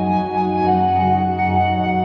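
Ambient meditation music: a steady low drone under long, held tones that change only slowly.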